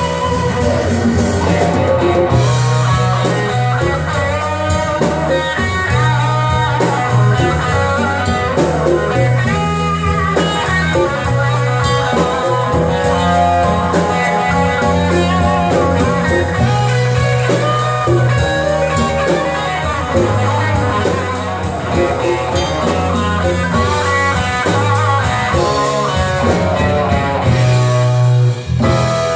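Band music with guitar over bass and drum kit in a slow blues feel, with no singing.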